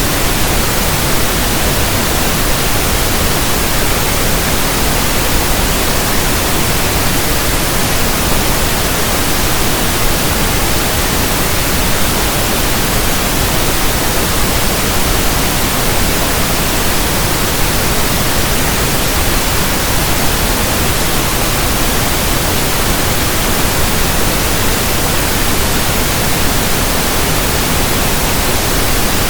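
Continuous synthesized pink noise: an even, steady hiss across the whole range, with no tones, breaks or changes in level.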